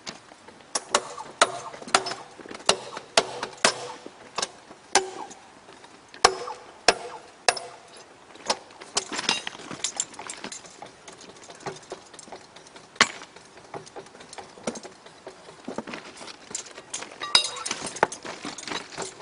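Repeated sharp metal-on-metal strikes with a short ring, like a hammer on steel, during rail thermite welding work. They come in a steady series of about one and a half blows a second, then grow irregular and sparser, with a quick cluster near the end.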